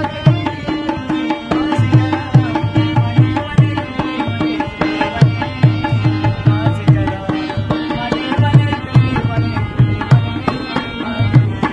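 Instrumental Pashto folk music: tabla played in a quick, steady rhythm, its bass drum strokes bending down in pitch, under a harmonium's held notes and melody.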